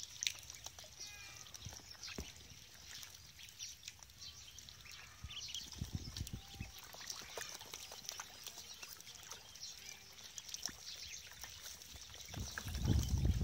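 Ducklings peeping in short high calls, with small splashes and taps as they paddle in a shallow tub of water. A louder low rumbling noise comes in near the end.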